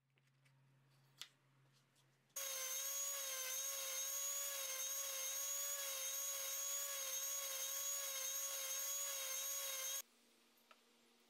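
Random orbit sander running upside down on the bench as small thin drawer parts are pressed against its pad: a steady, slightly wavering whine that starts a couple of seconds in and cuts off abruptly near the end. Before it, near silence with one light tap.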